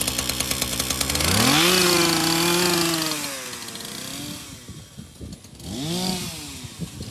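Two-stroke chainsaw idling, revved up to high speed about a second in and held for a couple of seconds, then dropping back and blipped once more near the end.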